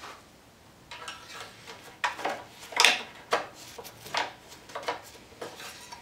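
A string of short, irregular scrapes and rustles from a gloved hand working the dipstick in the oil fill tube of a Briggs & Stratton 6.5 Intek OHV lawn mower engine. The loudest scrape comes about three seconds in.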